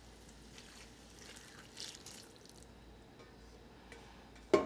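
Wine being poured into a pot of braising short ribs: a faint liquid splash and trickle, then a single sharp clink near the end.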